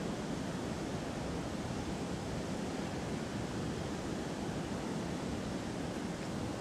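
Steady rush of river water pouring over a low dam's spillway, an even roar with no breaks.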